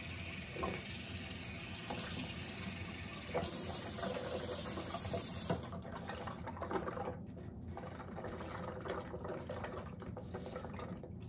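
Bathroom faucet running steadily into the sink while water is scooped from it by cupped hand to drink; the hiss of the water turns softer a little past halfway.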